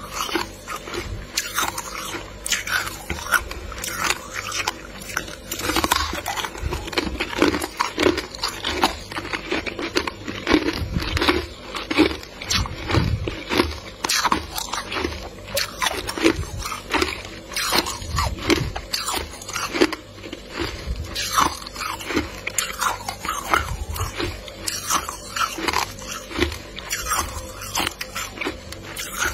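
Packed freezer frost being bitten and chewed: a continuous, irregular run of crunches, many per second.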